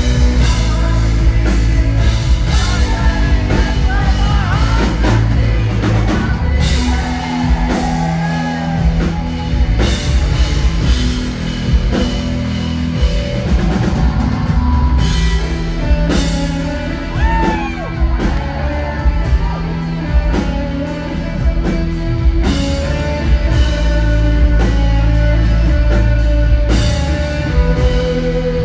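A live rock band playing loud, with electric guitars, bass and a drum kit, and a voice singing at times.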